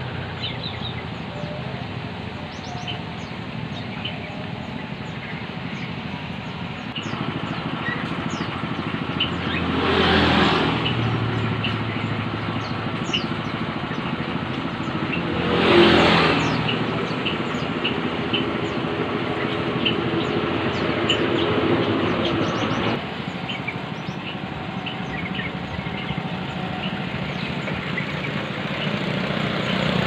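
Road traffic passing a roadside bird stall, with two vehicles going by about ten and sixteen seconds in. Under it, many caged birds chirp and call without a break.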